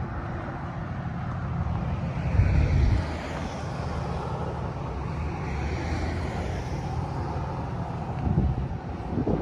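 Wind buffeting the microphone over a steady low rumble, with a stronger gust about two and a half seconds in.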